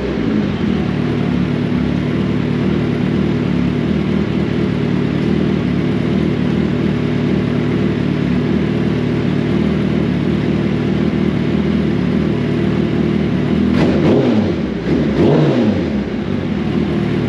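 Freshly rebuilt 2006 Suzuki Hayabusa inline-four running on a break-in heat cycle. It holds a steady speed, then is revved up and back down twice near the end.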